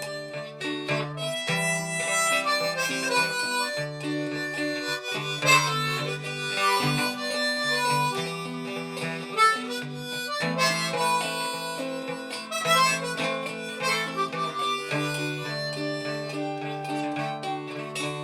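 Instrumental break in a folk song: a harmonica plays a melody of held notes over a strummed acoustic guitar.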